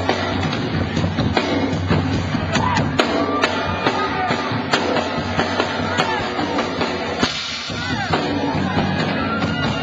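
Live blues-rock band playing, with sharp drum hits over electric guitar and bass. Near the end the low end drops out for under a second before the band comes back in.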